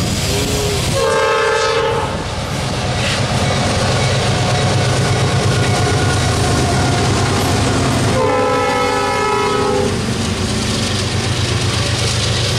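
Norfolk Southern diesel locomotive passing close with its Nathan P5 five-chime air horn sounding twice: a short blast about a second in and a longer one about eight seconds in. Between and under the blasts are the steady low rumble of the diesel engines and the rolling train.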